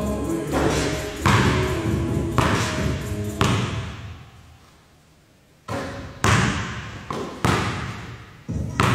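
A basketball bouncing and thudding on a gym floor in a string of sharp hits, each ringing on with the echo of a large empty gym, with a quiet gap of about two seconds in the middle.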